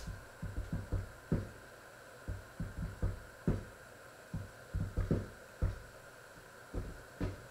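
Irregular dull knocks and thuds from a lidded pot boiling on the stove, coming in uneven clusters, over a faint steady hum.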